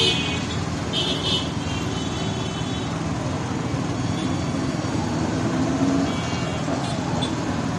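Road traffic in a slow jam of auto-rickshaws and buses: a steady hum of engines and tyres, with short high horn beeps right at the start and about a second in, and fainter ones near the end.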